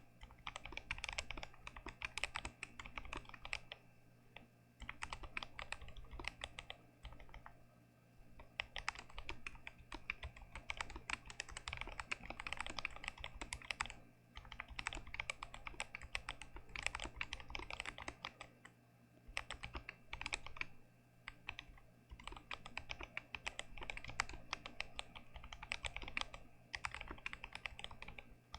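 Fast typing on an unmodded GMMK Pro mechanical keyboard with Gazzew Boba U4T tactile switches: runs of rapid keystrokes broken by short pauses every few seconds.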